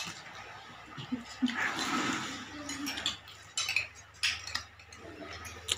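Tableware clinking and knocking, several sharp clinks in the second half, with a faint voice in the first half.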